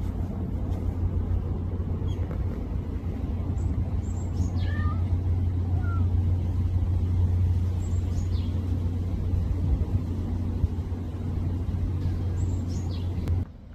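A steady low rumble, with faint high falling calls about every four seconds.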